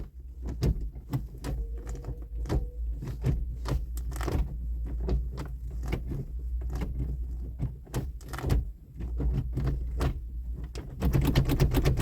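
A run of irregular clicks and light knocks over a steady low hum, with a quick rattling flurry of clicks near the end.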